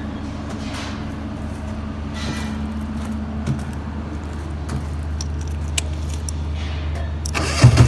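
A key on a chain jingling and clicking in the ignition switch of a Denyo light tower's control panel, over a steady low hum. Near the end the tower's diesel engine cranks and starts with a sudden loud rise, settling into running.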